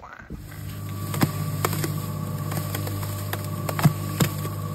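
Electric paddle mixer churning a tub of mortar: a steady motor drone that starts just after the beginning, with scattered sharp knocks in the mix.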